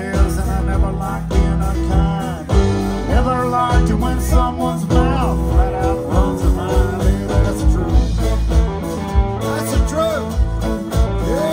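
Live country band music: electric and acoustic guitars, fiddle and drums playing with a steady beat, a lead line bending between notes.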